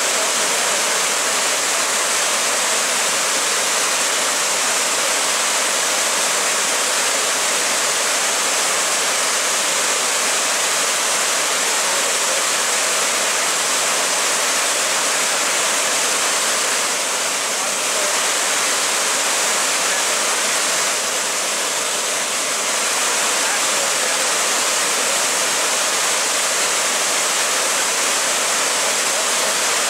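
Steady rush of white water tumbling over rocks in a small creek cascade, dipping slightly in loudness twice a little past the middle.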